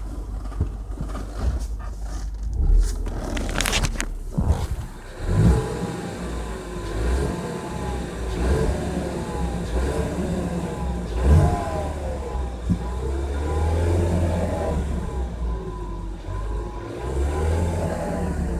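2015 Ford Mustang EcoBoost's 2.3-litre turbocharged four-cylinder being driven: a low engine and road drone, with a whine that rises and falls several times. There are a few knocks and clicks in the first few seconds. The owner hears a vacuum-cleaner-like noise from this car when accelerating.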